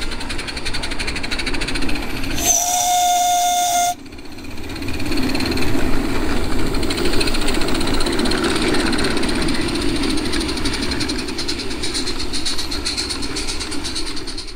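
Gas-fired live-steam garden-railway locomotive running. Its steam whistle sounds once, a single steady note for about a second and a half, a couple of seconds in. After that comes the steady rapid chuffing and hiss of the locomotive, growing louder as it passes close by.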